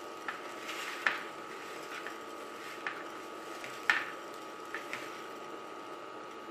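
Soft taps and rustling of hands rolling a breadcrumbed meatball in sesame seeds on a plate, with two sharper knocks about a second in and near four seconds, over a faint steady hum.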